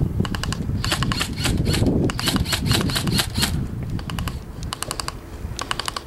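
Airsoft guns firing in rapid full-auto bursts of sharp clicks, several short bursts with a longer run of about a second near the middle.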